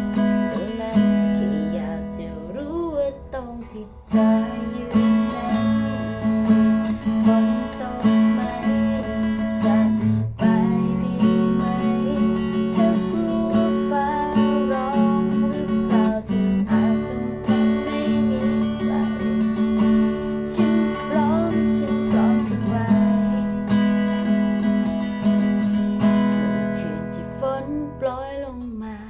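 Music: acoustic guitar strummed, with sustained chords over a steady low note and a melody moving above them.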